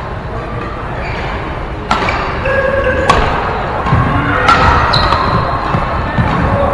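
Badminton rackets striking a shuttlecock in a rally, three sharp hits about a second or so apart, with short shoe squeaks on the court floor, echoing in a large sports hall.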